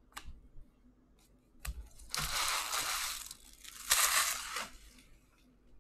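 Packaging crinkled and torn in two spells of about a second each, the second the loudest, after a light click at the start.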